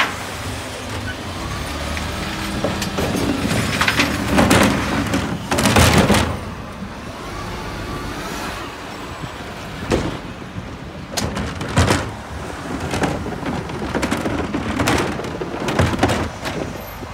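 Road vehicle noise: a steady low rumble with several short, loud swells of noise, the biggest about six seconds in.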